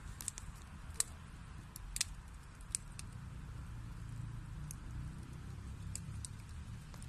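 Wood fire burning in a fireplace: a steady low rumble of flames with scattered sharp crackles and pops from the burning wood, the loudest about one and two seconds in.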